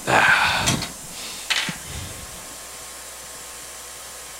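A steady airy hiss, broken near the start by a loud, rough noise lasting under a second and by a shorter, sharper one about a second and a half in.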